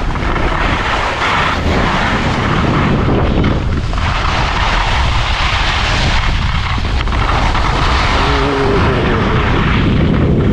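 Wind rushing over the action camera's microphone with skis sliding over snow during a downhill ski run: a steady, loud rumbling rush.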